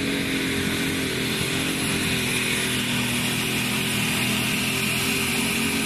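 Minneapolis-Moline G1000 unlimited super stock pulling tractor under full throttle and heavy load while pulling a sled, its turbocharged engine running loud at a steady pitch.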